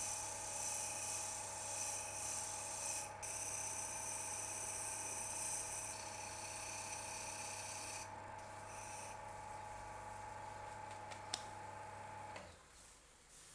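Wood lathe running with sandpaper held against the spinning turned blank: a steady motor hum under the hiss of sanding. The hum and hiss cut off about a second before the end as the lathe is switched off.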